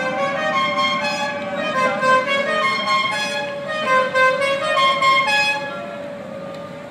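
Multi-note musical car horn playing a quick tune of changing pitches, stopping about five and a half seconds in.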